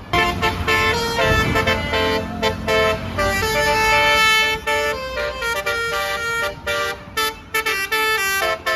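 Basuri telolet air horn on a bus playing a fast melody of stepped notes, starting suddenly. A brief low rumble comes about a second and a half in.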